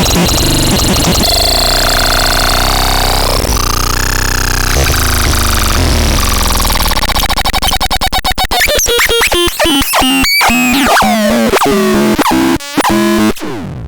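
Synthesizer playing harsh, noisy electronic textures with drifting tones. About eight seconds in, the sound breaks up into rapid stuttering clicks and gliding pitches, then cuts off just before the end.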